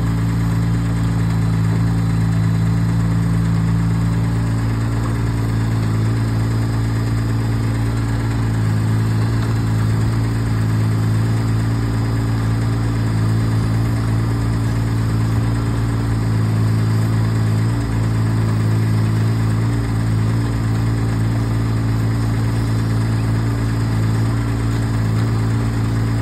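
HAIHONG CTX8010 mini excavator's engine running with a steady low drone while the machine works its arm and bucket. The note shifts slightly about four seconds in.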